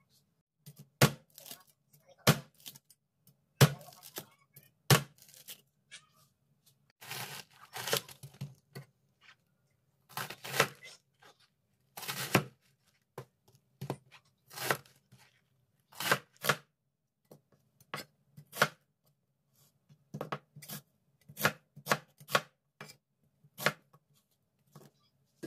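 Cleaver chopping tomato, cabbage and onion on a cutting board: irregular sharp knocks of the blade striking the board, about one or two a second, with a few longer cutting strokes among them.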